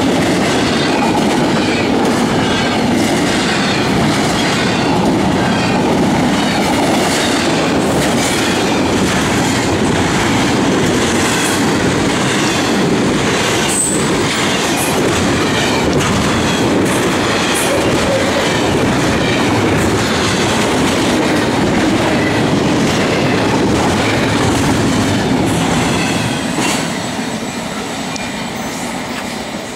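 Norfolk Southern freight train of double-stack container cars rolling steadily past, its wheels clicking over the rail joints with some high-pitched wheel squeal. The noise eases off near the end.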